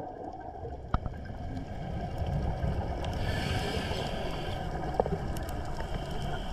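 Underwater ambience: a steady low rumble of water, with a few sharp clicks at about one and five seconds in.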